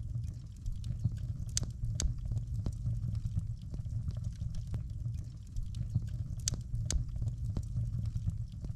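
Wood fire burning in a stove: a steady low rumble of the flames with scattered crackles and pops, a few sharper ones about one and a half to two seconds in and again near seven seconds.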